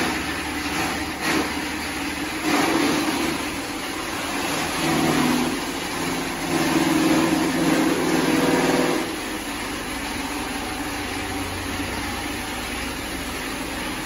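Steady mechanical hum of farm machinery, with a louder droning tone from about five to nine seconds in.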